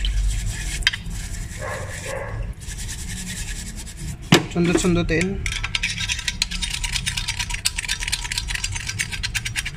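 A brush scrubbing a diesel-soaked EGR pipe. From about six seconds in, a pick pokes and scrapes rapidly inside the pipe, a fast run of small metallic clicks and scrapes as it works carbon deposits loose.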